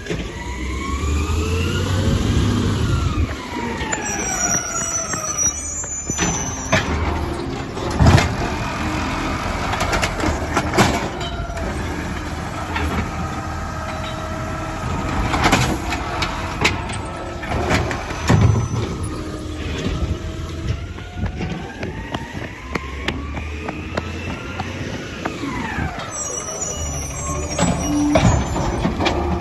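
Automated side-loader garbage truck working its hydraulic lifting arm: the engine revs up and settles back twice with a rising and falling whine, and sharp bangs and clanks come in between as a cart is lifted and emptied into the hopper.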